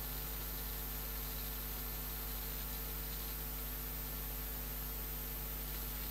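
Steady electrical hum with a background hiss, the recording's noise floor; nothing else happens.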